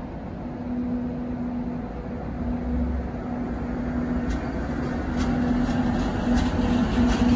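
A Matterhorn Gotthard Bahn HGe 4/4 II electric rack locomotive hauls the Glacier Express slowly into the station. Its steady electric hum breaks off now and then over a low rumble that grows louder as it nears. From about halfway through come a few sharp clicks of wheels on the rails.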